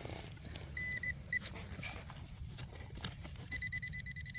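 Handheld metal-detecting pinpointer probe beeping as it is worked in a dig hole: a short high beep and a blip, then a rapid pulsing beep near the end as it closes on the buried target. Low wind rumble and a few soil scrapes underneath.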